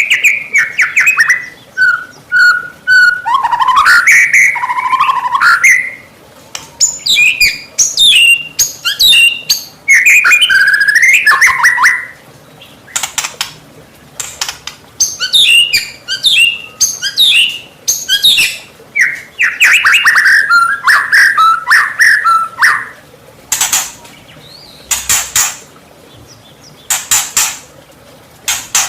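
White-rumped shama (murai batu) in full song: loud, rapidly varied phrases of whistles, pitch glides and trills. In the last few seconds it switches to a string of short, sharp notes.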